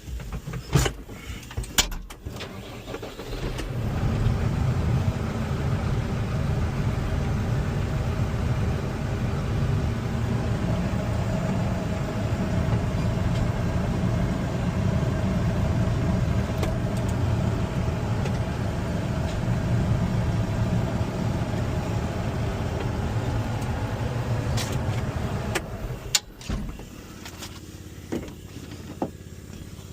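Tractor engine running steadily for about twenty seconds, coming in a few seconds in after some sharp knocks and dropping away near the end, as the tractor is used to push down on the baler tire and break the bead loose.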